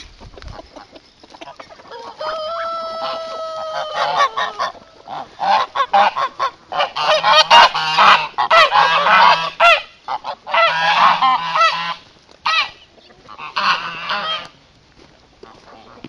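Domestic goose honking loudly in rapid, harsh runs of calls, a long stretch through the middle and a shorter burst near the end, among farmyard poultry. A single long drawn-out call, falling slightly at its end, comes about two seconds in.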